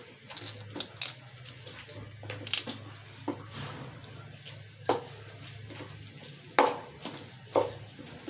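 A spoon stirring thick gram-flour pakora batter in a stainless steel bowl: irregular scraping and clinking against the bowl, with sharper knocks about five, six and a half and seven and a half seconds in.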